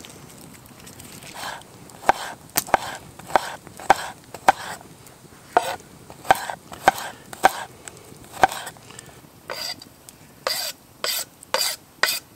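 Bushcraft knife chopping garlic on a small chopping board: irregular sharp taps of the blade on the board, with a few longer scraping strokes near the end.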